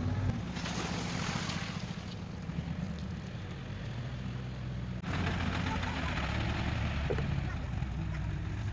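Engine of a concrete-hauling vehicle running steadily at a low, even pitch under a broad hiss. The sound changes abruptly about five seconds in, with the hiss growing louder.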